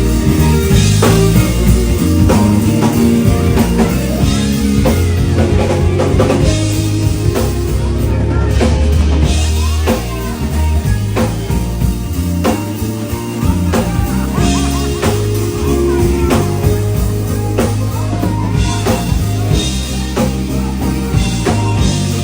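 Band music with a drum kit keeping a steady beat over a bass line.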